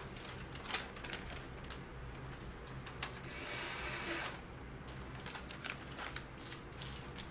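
Small plastic toy parts clicking and tapping as a doll's accessories are handled and fitted, with a brief rustle about three and a half seconds in.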